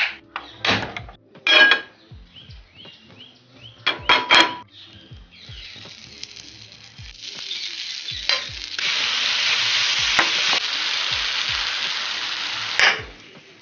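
A few clinks and knocks of kitchenware, then food sizzling in a hot frying pan: a steady hiss that sets in about five seconds in, grows louder, and cuts off suddenly near the end.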